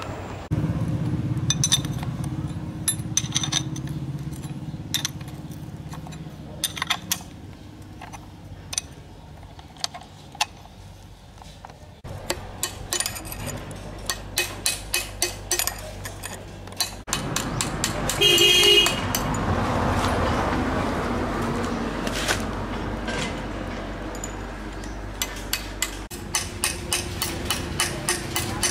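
Metal tool clicking and tapping against the steel bearing adjuster ring of a car differential as it is worked round, with light metallic clinks and a quick run of even clicks near the end. A short horn toot sounds a bit over halfway through.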